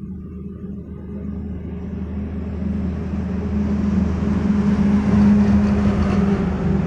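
A motor vehicle approaching and passing close by: a steady low engine hum with rising road noise that builds to a peak about five seconds in, then begins to fade.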